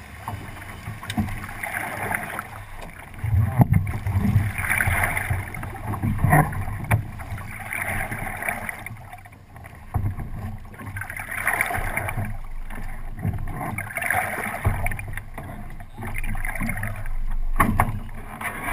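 Water rushing along the hull of a 29er sailing skiff under way, swelling every few seconds, with wind buffeting the microphone.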